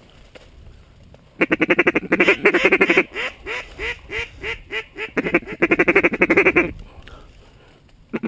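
Mallard hen duck call blown close by: a fast feed chatter, then a string of single falling quacks about three a second, then more fast chatter, used to turn passing mallards toward the decoys.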